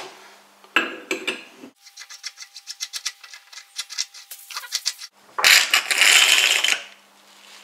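Hydraulic bottle jack being dismantled: a couple of metal knocks, then a fast, regular run of light metallic clicks for about three seconds as the top of the ram is worked loose. A loud rushing noise lasting about a second and a half follows as the ram piston is drawn out of the cylinder.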